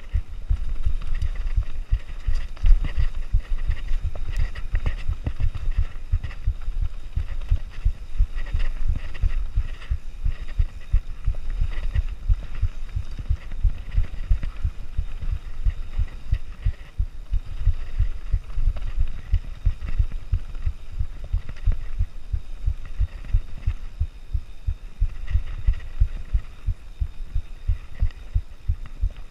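Nukeproof Mega mountain bike riding a rough downhill trail: a continuous, irregular low thumping and rumble as the bike and camera are shaken over bumps, with a hiss of tyre and wind noise over it.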